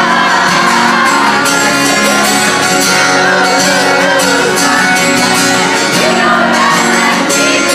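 Live pop song with guitar played over the hall's sound system, with voices singing and shouting along.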